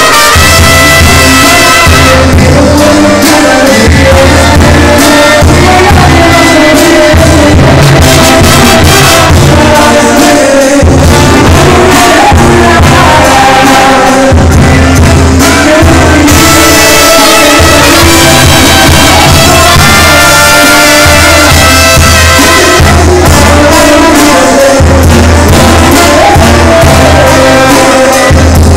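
Live Mexican banda music: trumpets, a sousaphone and drums playing, with a singer singing into a microphone over them and repeated low bass notes underneath. Very loud and close.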